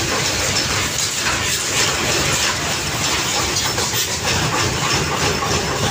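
Continuous loud clattering din of workshop machinery, a dense mix of rattles and knocks with no clear beat.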